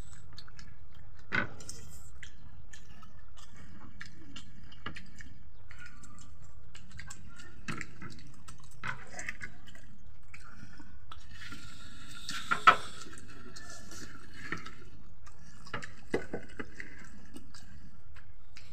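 People eating rice and curry with their hands: soft chewing and wet squishing with scattered light clicks, and one sharper click about twelve and a half seconds in, over a steady low hum.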